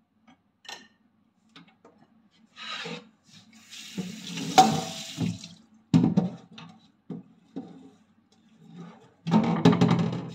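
Kitchen tap running into a stainless-steel sink in a few short spells, with knocks and clatter of utensils against the sink, the sharpest knock about six seconds in.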